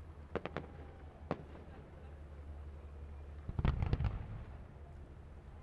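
Aerial fireworks going off: a few sharp cracks in the first second and a half, then a louder cluster of bangs with a deep boom about three and a half seconds in.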